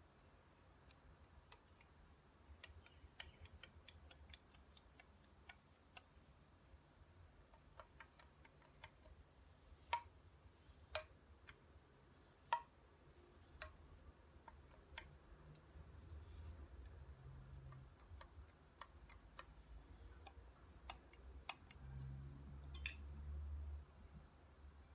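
Faint, irregular metallic clicks and taps from a Glissando flute headjoint's sliding tube wobbling in its sleeve: excessive play when the headjoint is cold. Three louder clicks come around the middle, and a low handling rumble near the end.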